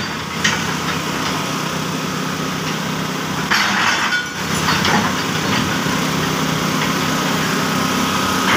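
Hyundai 220LC-9S crawler excavator's diesel engine running steadily at a low hum, with a brief louder rush of noise about three and a half seconds in.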